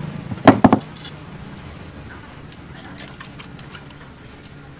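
Long steel knife clinking against a sharpening stone: a loud cluster of sharp metallic strikes about half a second in, then faint scattered clicks and scrapes.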